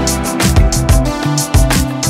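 Background music with a steady drum beat over held notes and a strong bass line.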